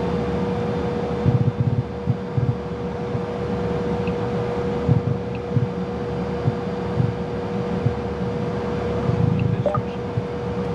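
Cessna Citation CJ3+ cockpit with both Williams FJ44 turbofan engines idling after start: a steady hum with one even whine, broken by irregular low thumps.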